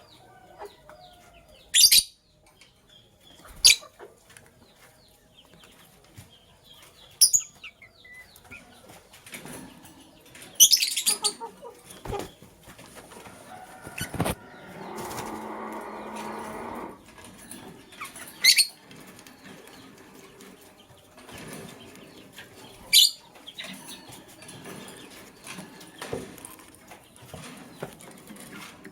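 Lovebirds chirping: about six sharp, high chirps spaced a few seconds apart. A flurry of wing flapping lasts about two and a half seconds around the middle.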